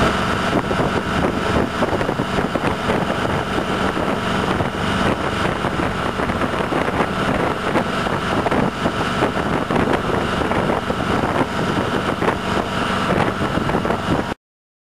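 Motorboat running at speed, its engine drone mixed with the rush of water along the hull and wake; the sound cuts off abruptly near the end.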